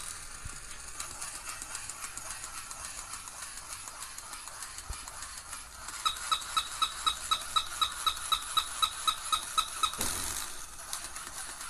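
Old mechanical toy dog running, its mechanism clicking rapidly and evenly. About halfway through, it gives a series of short high-pitched squeaks or beeps, about four a second for some four seconds, which stop with a brief noisy burst.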